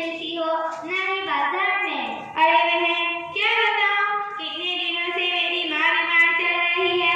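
A young girl singing solo and unaccompanied, with long held notes broken by short pauses for breath.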